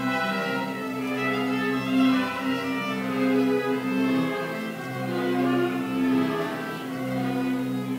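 Slow background music of bowed strings, long held notes that change every second or two.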